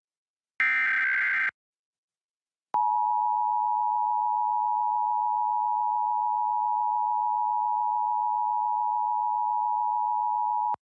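A short burst of Emergency Alert System header data tones about half a second in. About a second later a click, then the EAS attention signal: a steady two-tone alarm of 853 and 960 Hz held for about eight seconds, the signal that an emergency alert message follows.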